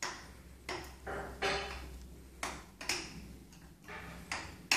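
A series of about seven irregular knocks and rattles, several trailing off briefly, over a low steady hum.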